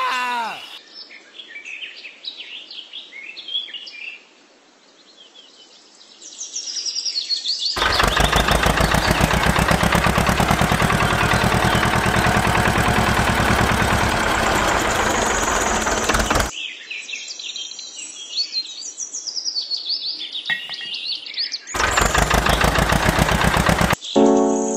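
Birds chirping, broken by a loud engine sound with a rapid, even chug: once for about eight seconds and again briefly near the end, as the miniature model tractor runs. Music starts at the very end.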